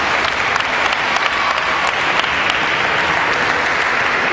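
Audience applauding, steady clapping from many hands.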